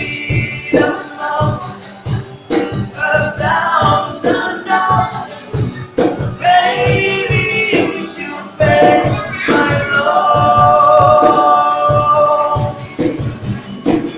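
Sung vocals over a small live band, with a tambourine shaking a steady beat about three times a second and a low drum pulse underneath. The singer holds one long note near the end.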